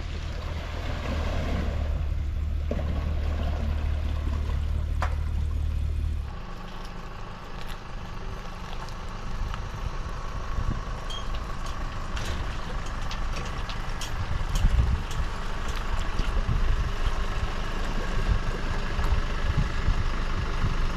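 An engine running steadily with a strong low drone that changes suddenly about six seconds in to a quieter mix of steady hum and small clicks.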